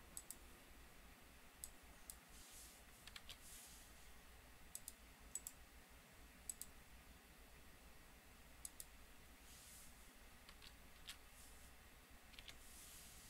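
Faint computer mouse clicks, scattered and several in quick pairs like double-clicks, with a few soft brushing swishes in between.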